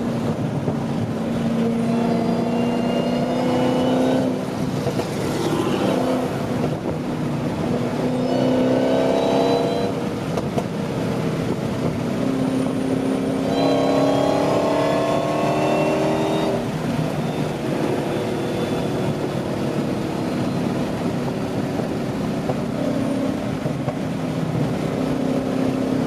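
Car engine accelerating through the gears. Its pitch climbs for a few seconds and drops sharply at each upshift, three times, then holds fairly steady at cruising speed.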